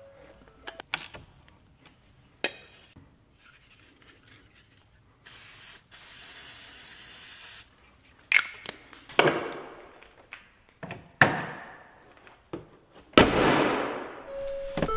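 Hand tools clicking and clanking on a car battery's negative cable terminal as it is reconnected and tightened, with a short hiss about five seconds in. A louder knock and rustle near the end, then the vehicle's electronic warning chime starts right at the end.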